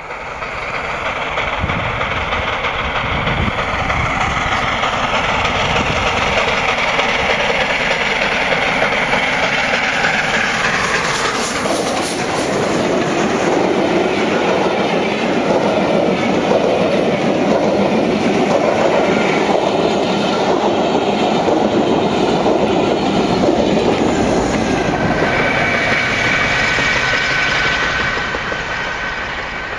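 LNER A4 Pacific steam locomotive running past at speed with a loud, steady roar, then the coaches rattling by with wheel clickety-clack over the rail joints. Near the end a steady two-note whine comes in as the diesel locomotive at the rear goes by.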